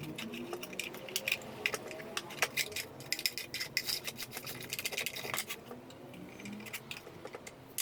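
Irregular small clicks and clinks of hard parts and tools being handled, many light taps in quick succession.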